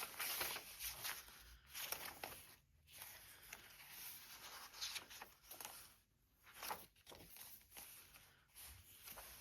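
Paper and card rustling and sliding as they are handled, a string of short rustles with quiet gaps between.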